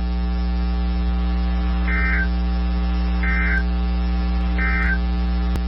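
Three short bursts of Emergency Alert System digital data tones, each about a third of a second long and about 1.3 seconds apart. These are the SAME end-of-message bursts that close a NOAA Weather Radio warning. A steady electrical hum runs underneath, with a single click near the end.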